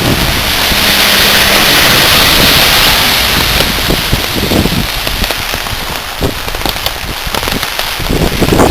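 Rain falling steadily on a street, an even hiss, heaviest over the first few seconds and easing slightly after, with a low rumble underneath.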